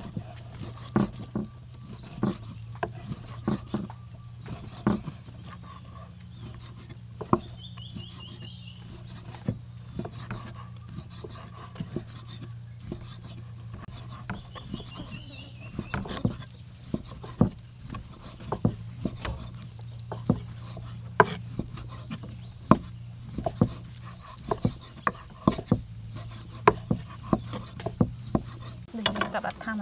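A large knife slicing raw beef on a thick wooden chopping block, the blade knocking sharply on the wood at irregular intervals as pieces are cut off. A steady low hum runs underneath.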